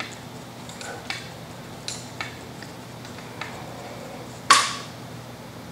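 Steel wrenches clicking lightly against a Ford Model T's adjustable valve lifters while the lifter screws are adjusted to set valve clearance. About four and a half seconds in comes one louder metal clink with a short ring.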